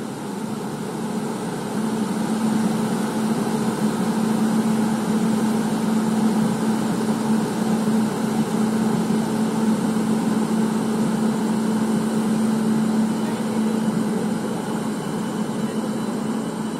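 Indian Railways WAP7 three-phase electric locomotive pulling away with a passenger train, a steady loud electric hum over running noise. It swells about two seconds in as the loco accelerates, then holds and eases slightly near the end.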